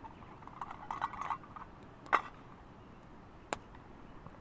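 Light metal clinks and taps as a lightweight backpacking cook pot's lid is set onto the pot over campfire coals and a stick works against it, with a small cluster of clicks about a second in and the sharpest clink about two seconds in.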